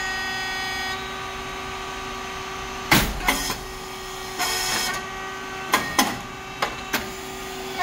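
SYP9502 rice cake popping machine running with a steady hum from its hydraulic pump and motor. About three seconds in there is a sharp bang, then a brief hiss and a few sharp clicks as the mould cycles.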